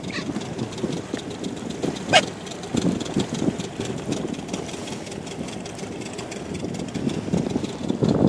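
Small outboard motor on a rubber dinghy running at low speed, a steady rough rumble, with one short sharp squeak about two seconds in.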